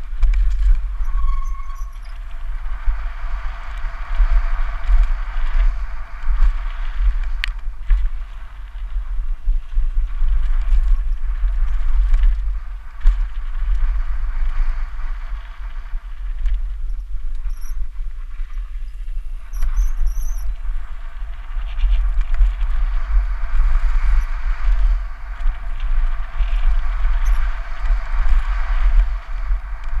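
Downhill mountain bike on a loose gravel trail at speed: steady tyre crunch and frame rattle under heavy wind rumble on the camera microphone. A sharp click about seven seconds in and a few brief high squeaks around the middle.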